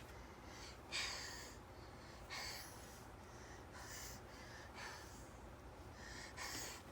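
A baby's faint snorting, sniffing breaths, about five short ones spread over a few seconds, the first the loudest: the baby is working up to a sneeze that doesn't come.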